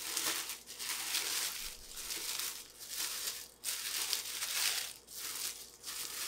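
A thin plastic bag crinkling as it is pulled and worked off a clear acrylic display case. The rustling comes in irregular spells broken by brief pauses.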